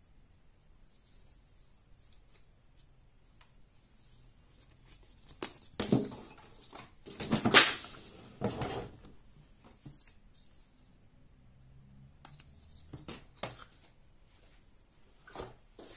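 Handling noise: a sheet of magnetic letters and the wooden whiteboard easel being moved about, a cluster of rustles and knocks from about six to nine seconds in, then a few light taps near the end.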